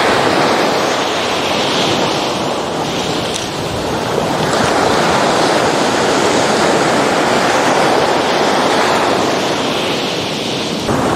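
Sea surf breaking on a sandy shore: a steady rush of waves, a little louder from about four seconds in, with wind buffeting the microphone.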